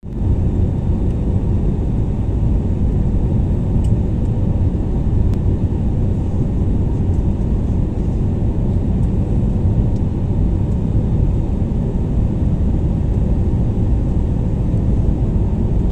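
Airliner cabin noise from a window seat on the approach to landing: a steady, deep rumble of jet engines and airflow past the fuselage.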